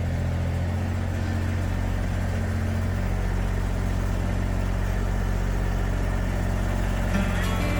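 Massey Ferguson GC2610 compact tractor's diesel engine running steadily with a low, even hum, which grows slightly heavier about three seconds in. There are a few light clicks near the end.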